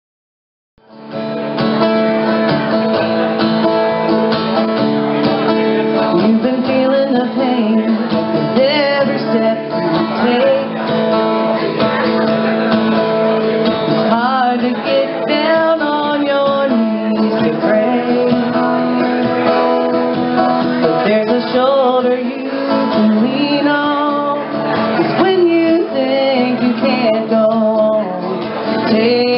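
Live acoustic song: a woman singing into a microphone over a strummed acoustic guitar. The music starts about a second in.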